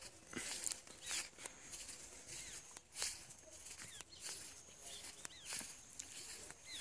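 Footsteps on a dirt and grass field track, irregular soft scuffs, with small birds chirping in short repeated calls.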